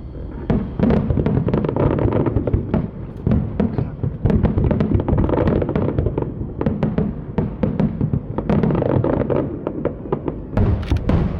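Aerial fireworks bursting in quick succession: a continuous low rumble of booms overlaid with many sharp cracks, thickest near the end.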